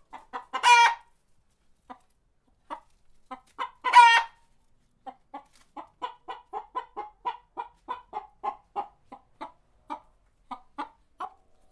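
Chicken clucking in short calls, with two louder drawn-out squawks in the first half, then a fast run of about three to four clucks a second.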